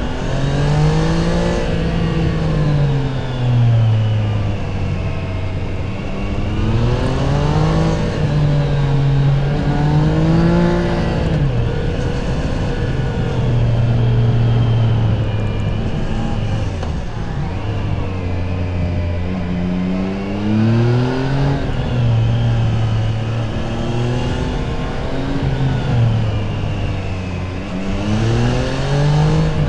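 Triumph Tiger Sport 660's three-cylinder engine through its stock exhaust, accelerating and easing off over and over, its pitch rising and falling several times as the rider works through the gears.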